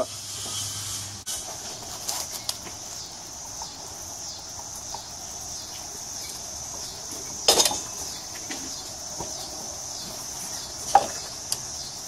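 A steady high insect buzz, softly pulsing, with a few light clicks and knocks of metal parts being handled at a motorcycle's rear wheel: a louder knock about halfway through and a sharp metallic clink near the end.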